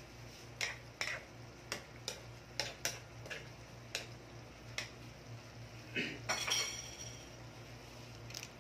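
Serving spoon knocking and scraping against a non-stick frying pan while stirring chicken and pineapple in sauce: about a dozen irregular knocks over the first five seconds, then a longer scrape with a brief ringing clink around six seconds in, over a low steady hum.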